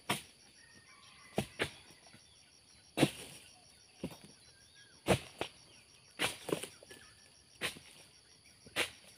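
Sharp chops of an oil palm harvesting chisel (dodos) on a long pole cutting into the stalks of a young oil palm's fronds and fruit bunches, about one a second, some in quick pairs.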